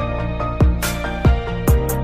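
Background music with a steady beat: a low drum hit about every two-thirds of a second under sustained keyboard-like notes, with occasional cymbal hiss.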